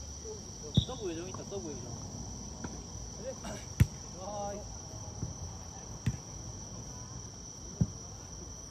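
Jokgu ball being kicked in a rally: a loud, sharp kick about four seconds in, with fainter kicks before it and twice after it. A steady high chirring of crickets runs under it.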